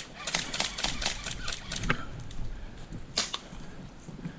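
Airsoft guns firing: a quick, irregular string of sharp snapping shots over the first two seconds, then two more shots a little after three seconds.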